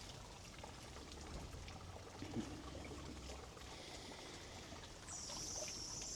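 Faint, steady trickling and splashing of water from a garden fountain. A brighter, higher hiss joins about five seconds in.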